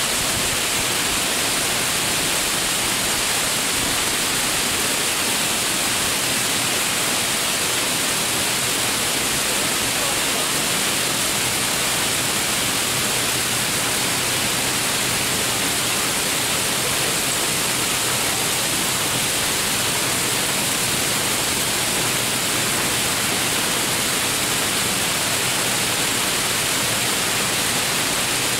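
Torrential rain pouring down in a dense, steady hiss that never lets up.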